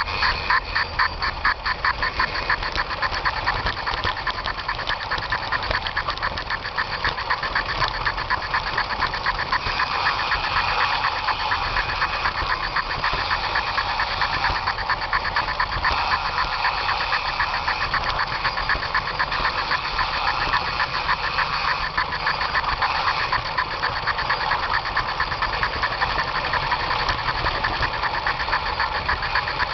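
Märklin gauge 1 model locomotive running along garden-railway track, heard close up from on board: a loud, fast, even mechanical chatter with a rapid clicking beat that holds steady throughout.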